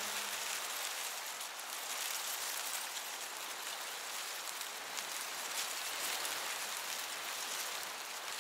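A soft, steady hiss like light rain, with faint crackles through it; it starts to fade near the end.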